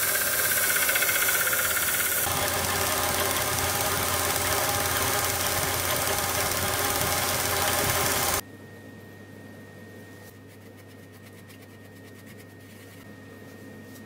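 Small vertical belt sander running, with a marking knife held against the belt and being ground, a steady loud grinding noise that shifts in tone about two seconds in. The sound cuts off suddenly about eight seconds in, leaving a quiet room with a faint steady high whine.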